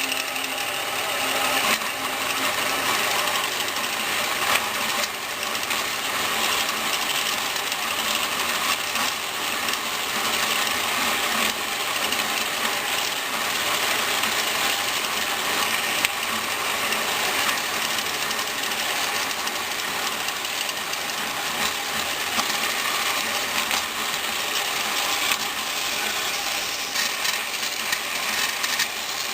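Bandsaw running steadily while its blade cuts through the base of a sealed metal electrolytic capacitor can.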